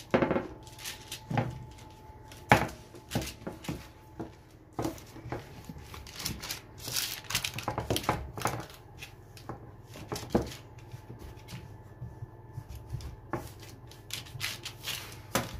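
Hands pressing and spreading soft shortcrust dough across a parchment-lined metal baking tray: irregular pats, rustling of the baking paper and occasional knocks on the tray.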